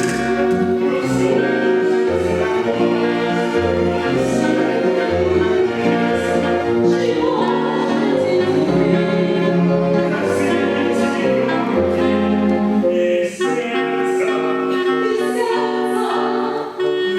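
Orchestral music with bowed strings, the bass notes changing every second or so.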